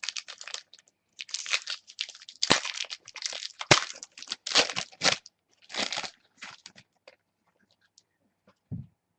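Crinkling and tearing of a trading card pack's wrapper as football cards are unwrapped, in irregular rustling bursts with a couple of sharp snaps.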